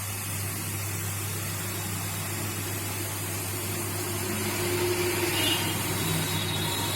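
Hot air rework station blowing a steady hiss of hot air, at a low airflow setting, with a constant low hum underneath; it is reflowing the solder paste under an IC on a phone motherboard.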